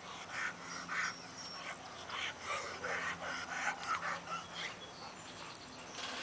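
Dogs giving short, irregular barks and whines, over a steady low hum.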